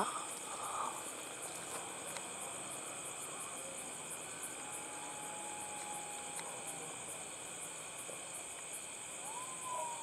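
Crickets chirring in a steady, high-pitched chorus, with a faint long drawn-out tone about halfway through and another near the end.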